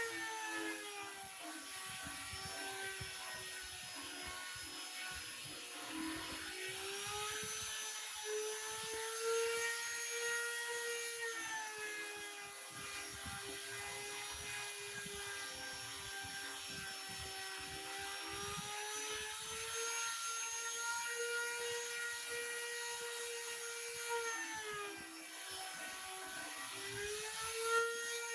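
Electric power tool motor running continuously with a high whine, its pitch dipping and recovering slowly as the load on it changes.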